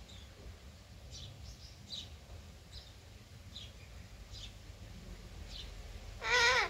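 Pet parrot making faint short chirps every half second or so, then one loud wavering call near the end.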